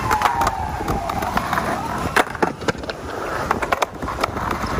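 Skateboard riding on a concrete skatepark ramp: Bones 58 mm urethane wheels rolling with a whirring tone that falls in pitch during the first second. Sharp clacks and knocks come through it as the board and trucks hit the ramp and coping, the loudest a little over two seconds in.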